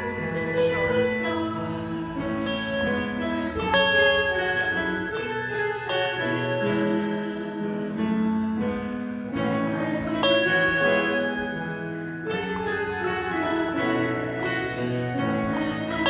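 Handbell choir playing a piece: bells struck one after another in a melody, each note ringing on and overlapping the next.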